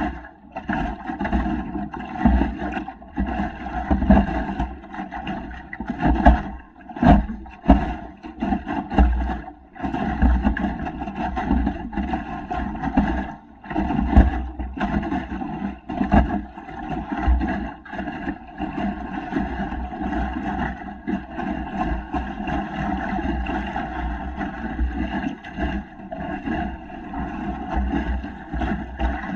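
Lake water rushing and slapping along the wooden hull of a small sailboat under sail, with wind buffeting the microphone in uneven gusts.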